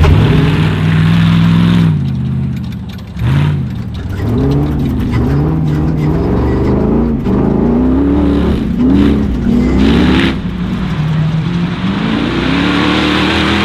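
Long-travel off-road pickup's engine revving hard and easing off again and again, its pitch rising and falling about once a second as it is driven flat out on dirt.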